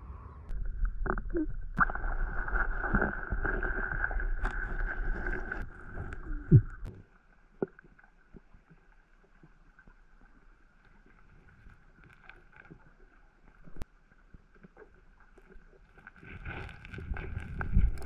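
Wind buffeting the microphone by the lake shore, a dense low rumble with a few knocks, for the first seven seconds or so. It then cuts to a much quieter, muffled underwater background with scattered faint clicks.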